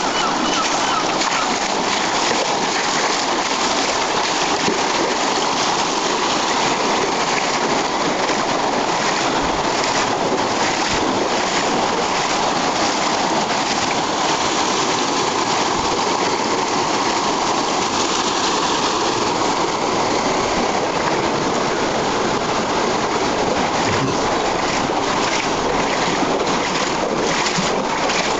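Floodwater rushing and splashing in a steady, unbroken flow.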